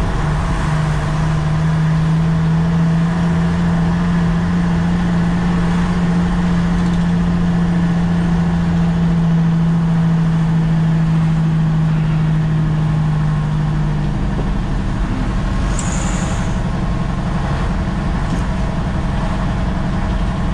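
Nissan CK 31 L concrete pump truck's diesel engine running under way, holding a steady note that drops away about fourteen seconds in. A brief high hiss comes about sixteen seconds in.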